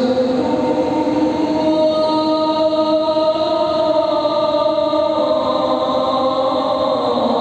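A voice chanting in long held notes that change pitch slowly, in the melismatic style of Islamic chanting.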